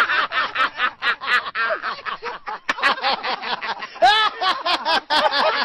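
Men laughing hard in quick, repeated bursts of laughter. A louder, higher-pitched laugh comes in about four seconds in.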